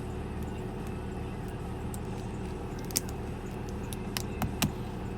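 Several sharp metallic clicks as a snap ring is fitted into a ratchet head with snap ring pliers: one about three seconds in, a quick cluster a second later and a louder one at the end, over a steady low hum.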